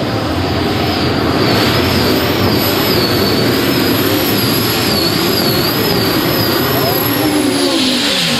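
A high-horsepower competition pulling tractor running flat out under load on a pull, with a high whine that wavers up and down over the loud engine. Its engine note falls away near the end as it comes off power.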